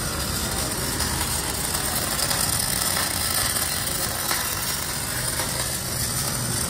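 Electric arc welding on a steel tractor bumper: a steady hiss from the welding arc, with a few faint crackles and a low steady drone underneath.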